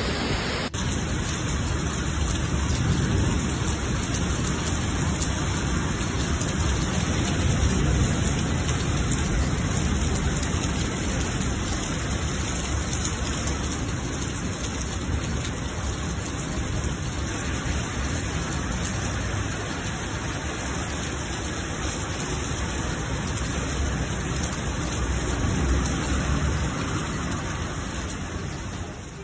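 Heavy rain pouring steadily, a dense hiss with a low rumble underneath.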